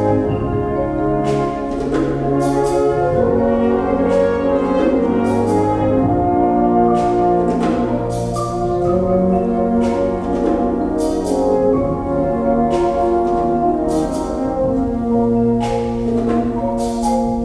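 Wind band playing, with brass (horns, trumpets, trombones) holding sustained chords that change every second or so, and sharp percussion strokes every second or two.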